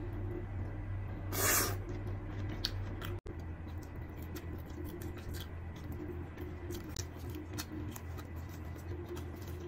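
Close-up eating sounds: small wet clicks and smacks of biting and chewing, first on orange flesh, then on fried balls pulled from bamboo skewers. A short rushing noise comes about a second and a half in, over a steady low hum.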